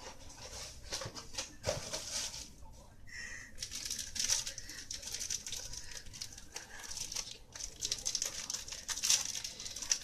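Thin plastic packaging crinkling and rustling in the hands as a Twinkie is handled and unwrapped, a dense run of small crackles. A brief high squeak comes about three seconds in.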